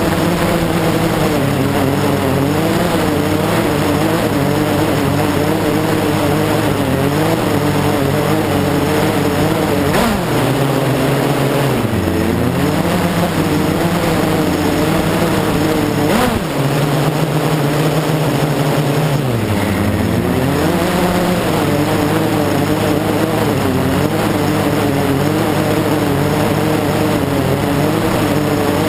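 Blade 350 QX quadcopter's four brushless motors and propellers running in flight, heard close up from on board: a steady whine of several wavering pitches that dip and recover a few times as the motors change speed. Two brief clicks about ten and sixteen seconds in.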